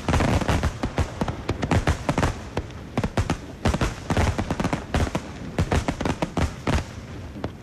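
Starmine fireworks barrage: a rapid, overlapping volley of aerial shell bursts, several bangs each second without a break.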